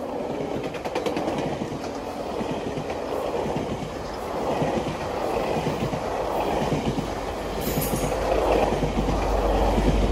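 GO Transit bilevel passenger coaches rushing past close by, their wheels clicking over the rail joints, with a brief high squeal about three-quarters of the way through. A low diesel rumble builds toward the end as the locomotive pushing at the rear of the train comes by.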